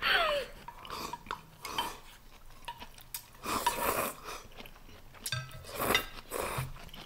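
Close-miked eating at a table: chopsticks and bowls clinking, with chewing and mouth sounds in scattered short bursts, the biggest about three and a half seconds in and again about six seconds in.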